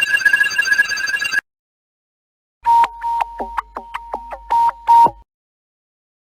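Two short Curitel C-500 mobile phone ringtones, played one after the other. The first is a ringing electronic tone on one high pitch, lasting about a second and a half. After a short gap comes a steady beeping tone broken by about five clicks a second, which cuts off abruptly.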